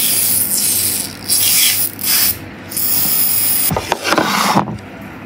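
Aerosol snow spray hissing from the can in about four short bursts, then a brief, different rustling sound near the end.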